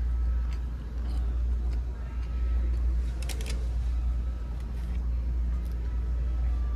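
Steady low background rumble, with a short burst of sharp clicks about three and a half seconds in and a few faint scattered ticks.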